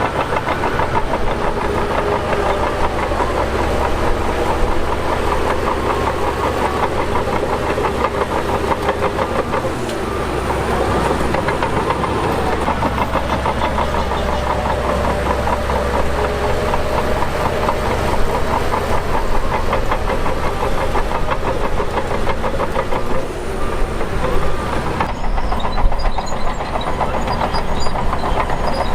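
Shantui DH17 crawler bulldozer's diesel engine working, its pitch rising and falling a little, with a fast rhythmic clatter.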